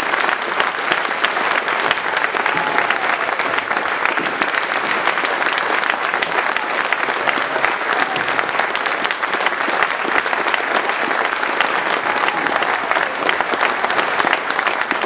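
A large crowd applauding steadily at length, a dense patter of many hands clapping.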